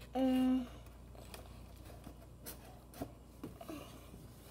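A short, steady hummed 'mm' from a child's voice right at the start, then faint scattered scrapes and rustles of a plastic-wrapped cardboard box being handled.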